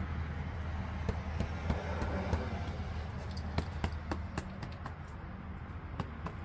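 Irregular light taps and knocks, an engine air filter being slapped to knock the dirt and bugs out of it, heaviest about halfway through. A steady low hum runs underneath.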